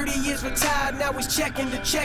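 Hip hop music with a drum beat over a looping melody.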